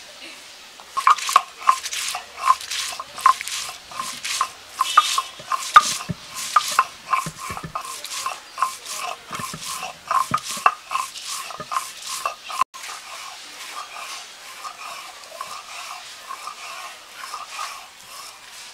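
Stone roller crushing and grinding dry and green chillies on a stone grinding slab (shil-nora): a rapid run of sharp stone-on-stone knocks and scrapes, then, from about two-thirds through, a softer, even rolling scrape as the chillies are worked into a paste.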